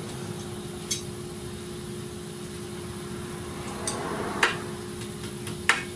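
A few sharp metallic clicks and taps of hand tools and cotter pins being worked into place, the two loudest near the end, over a steady background hum.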